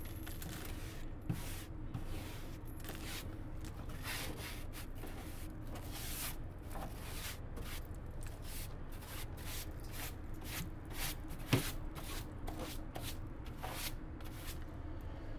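Rust flakes being scraped and pushed across the sheet-metal floor of a furnace burner compartment with a small plastic tool: repeated, irregular scraping strokes. The rust was shed by the rotted burner tubes. A steady low hum runs underneath.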